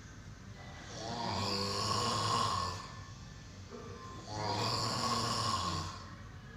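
A sleeping person snoring heavily. There are two long snores, each lasting a second and a half to two seconds, coming about every three seconds with quieter breathing between them.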